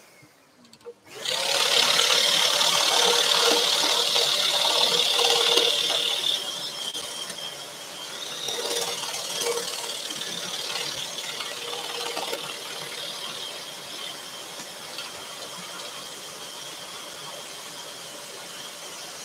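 Scroll saw running and cutting through thin tulipwood, a steady buzz with a high whine. It starts about a second in and drops quieter about six seconds in.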